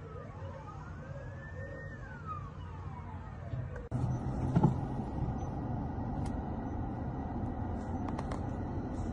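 Several emergency vehicle sirens wailing and overlapping, each rising and falling in pitch. About four seconds in, the sound cuts to a steady outdoor rumble with a few sharp clicks.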